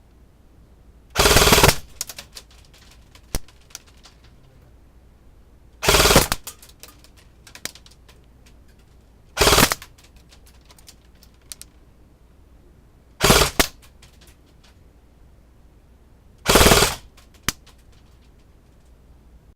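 CYMA AKM airsoft electric gun, upgraded with a 120 spring and an 11.1 V LiPo battery, firing five short full-auto bursts about three to four seconds apart. Each burst is followed by a scatter of small clicks.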